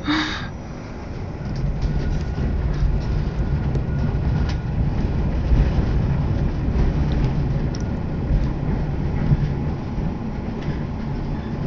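Passenger train running along the track, heard from inside the carriage: a steady low rumble of wheels on rails, with faint scattered clicks and rattles.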